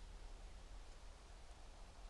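Near silence: a faint steady low rumble with light hiss.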